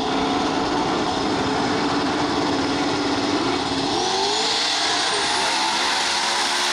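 A car engine running, its pitch rising about four seconds in as it revs up.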